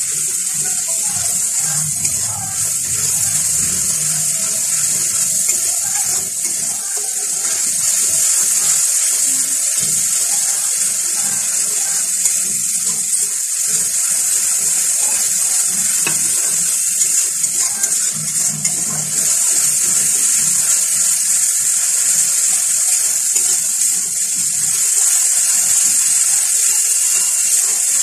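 Grated onion and whole spices sizzling steadily in hot oil in a kadai, with a spatula stirring through the masala against the pan.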